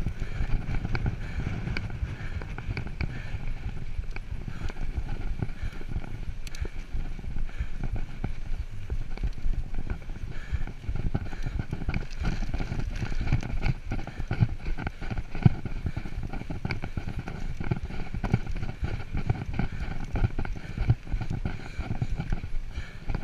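Mountain bike rolling fast over a dry dirt trail: tyre noise on the hardpack with a constant run of small rattles and knocks from the bike over bumps, over a low rumble.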